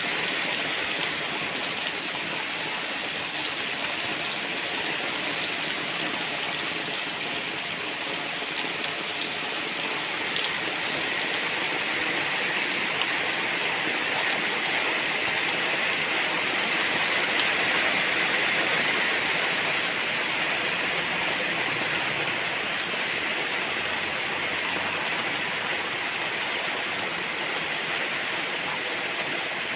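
Heavy rain pouring steadily onto tiled roofs and trees, a dense even hiss that swells slightly about halfway through.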